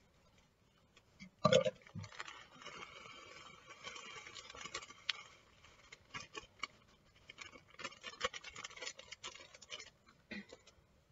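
A knock about a second and a half in. Then a plastic bag of shredded coconut crinkles and rustles for several seconds, with scattered ticks, as the coconut is shaken out into a steel mixing bowl. It tails off near the end.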